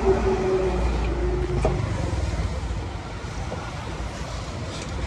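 A motor vehicle's engine rumbling close by, loudest for the first two seconds and then dying away, with a single knock about one and a half seconds in.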